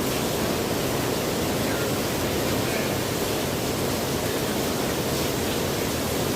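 Steady rushing noise, even and unchanging throughout.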